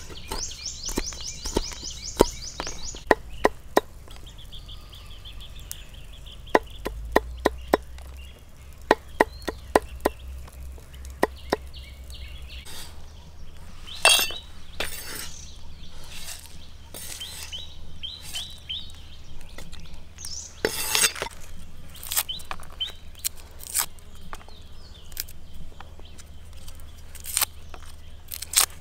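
Large kitchen knife chopping red chilies on a wooden chopping board: a quick run of sharp knocks for the first ten seconds or so. After that come scattered, louder knocks and scrapes as the chopped chilies are scraped into a stone mortar, with birds chirping faintly in the background.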